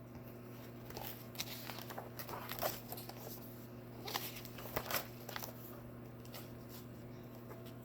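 Faint handling sounds, soft rustles and scattered small clicks, over a steady low hum.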